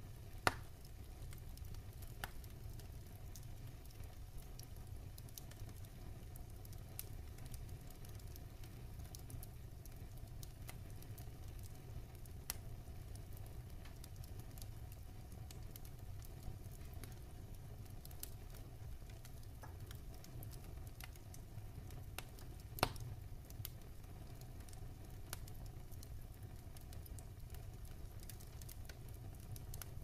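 Wood logs burning in a fireplace, crackling with scattered small pops over a low steady rumble. Two sharper, louder pops stand out, one about half a second in and one about three quarters of the way through.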